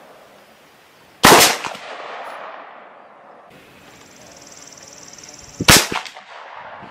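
Two sharp shots about four and a half seconds apart, the first about a second in with a long echoing tail. The second, near the end, is the .50-calibre Dragon Claw big-bore air rifle firing a pellet.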